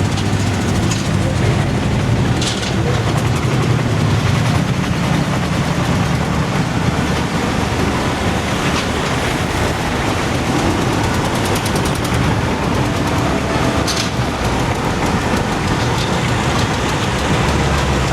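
An engine running steadily with a deep low rumble under a constant rushing noise.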